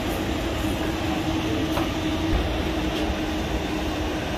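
Inside a streetcar on the move: a steady low rumble with a constant hum and a few faint clicks.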